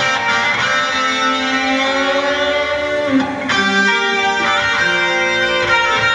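Instrumental music with a guitar playing a slow melody of long held notes, with a note bent down in pitch about three seconds in.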